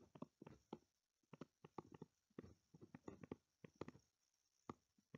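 Faint, irregular taps and clicks of a stylus on a tablet as a word is handwritten, several a second.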